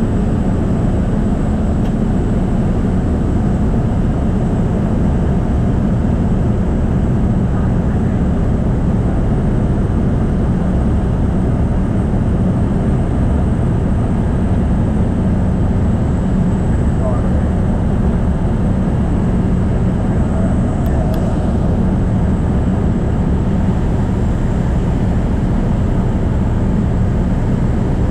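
Small propeller aircraft's engine running steadily in flight, heard from inside the cabin as a loud, even, low drone with a steady hum and a faint high whine.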